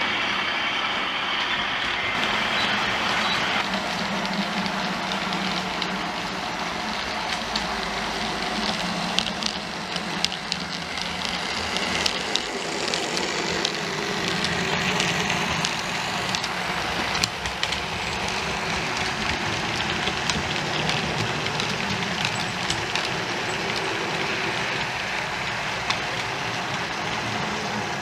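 OO gauge model train running, its DCC sound decoder playing locomotive engine sound through a small onboard speaker, with many small clicks of wheels and track.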